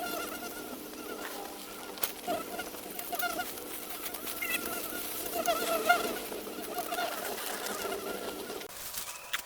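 Birds calling with short, wavering repeated calls over a steady low hum; the hum stops near the end.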